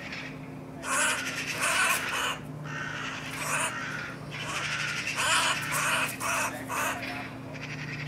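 Eurasian magpie giving harsh, rasping chatter calls in a rapid series of short bursts, with a pause about halfway through.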